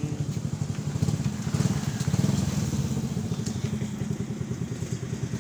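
A small engine running steadily close by, a fast low putter.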